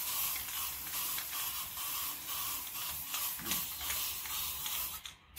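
Aerosol can of metal primer spraying: a steady hiss that stops about five seconds in.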